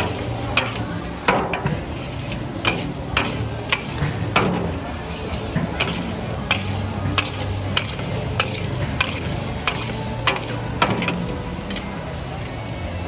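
Long metal ladle and spatula stir-frying fried rice in a large steel wok, clanking and scraping against the pan roughly once or twice a second, over a steady low hum.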